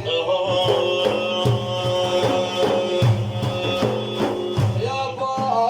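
Instrumental break between sung lines of a madih praise song: held melody notes over a steady drum beat.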